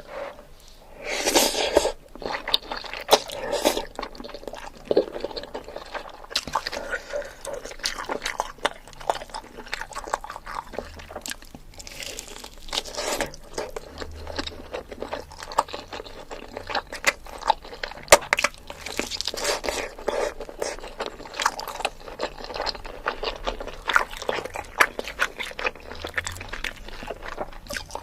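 Close-miked eating sounds: crunchy bites and steady chewing, with many small wet mouth clicks.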